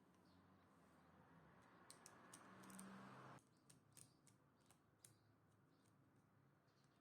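Near silence: a faint hiss that stops suddenly about three and a half seconds in, with a few faint small clicks.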